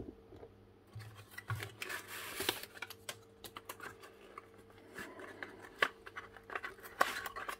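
Cardboard packaging of a Wiha non-contact voltage tester being handled and slid out of its box: scattered rubbing, scraping and light clicks of card on card. A faint steady hum runs underneath.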